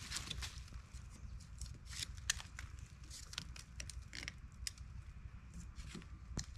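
Irregular snaps, crackles and rustling of dry twigs and leaf litter as someone works by hand at a fallen log, over a low steady rumble.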